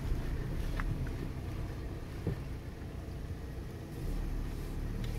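Škoda Yeti engine idling, heard from inside the cabin as a steady low hum while the car stands out of gear; it gets a little louder about four seconds in.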